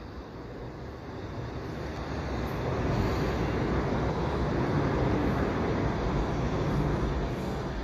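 Electric multiple-unit passenger train running through the station close below, a rumbling rush that grows louder over the first three seconds as it nears, then stays loud as it passes.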